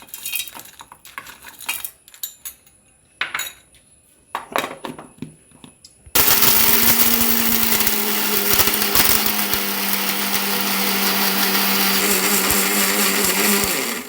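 Small hard pieces clinking into a mixer jar. About six seconds in, an electric mixer grinder starts and runs steadily for about eight seconds, grinding dry roasted tulsi and adalodakam leaves with rock sugar, then cuts off near the end.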